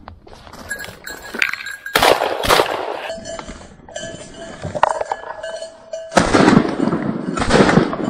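Shotgun fired twice about a second apart near the end, at a bird flushed from the dog's point; the bird is downed. A first loud burst of noise comes about two seconds in.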